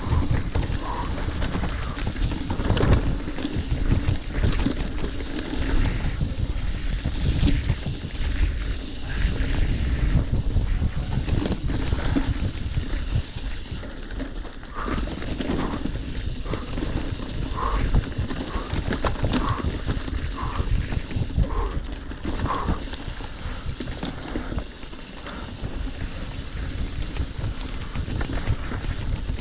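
Mountain bike ridden fast down a rough dirt trail, heard from a camera on the rider: wind buffeting the microphone, tyres rolling over the ground, and frequent knocks and rattles of the bike over bumps. A run of short high squeaks comes in the second half.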